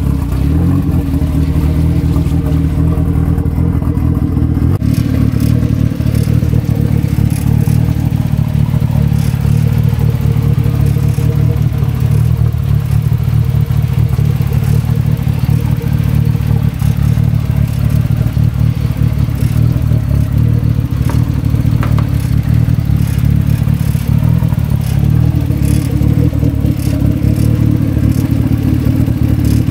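Turbocharged Mazda Miata NB four-cylinder engine idling steadily, warming up shortly after a cold start.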